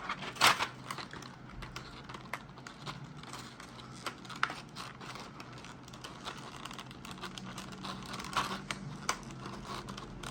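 A small box of keycaps being handled and opened by hand: scattered sharp clicks and light rustling, with the sharpest click about half a second in.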